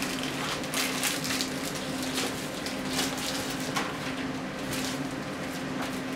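Clear plastic bag crinkling and rustling in irregular crackles as it is opened and a carded set of plastic spring clamps is pulled out of it.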